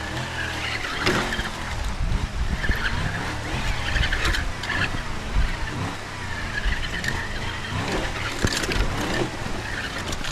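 Carisma SCA-1E Coyote electric RC crawler truck driving over rocks: its motor whines and its pitch rises and falls with the throttle, while the wheels and chassis knock against stone again and again, mixed with an added vehicle sound effect.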